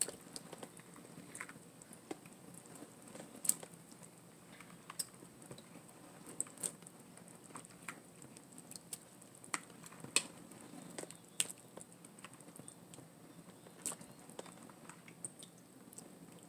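Scattered, irregular light clicks and taps, about one a second, as tongs pick live crawfish out of a plastic bowl of water and move them to the boiling pot: tongs and crawfish shells knocking against each other and the bowl.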